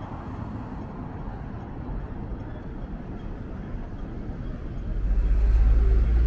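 Road traffic running steadily, with a deep low rumble that swells about five seconds in.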